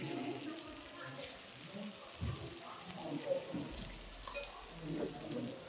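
Oyster pieces sizzling in oil in a frying pan on a gas stove, an even hiss, with a few light sharp clicks.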